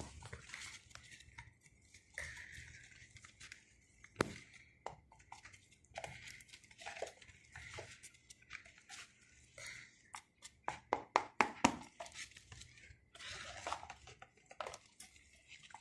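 Craft stick stirring a thick mix of glue, paint and shaving foam in a cup: soft scraping with scattered clicks of the stick against the cup, and a quick run of clicks, about four a second, a little past the middle.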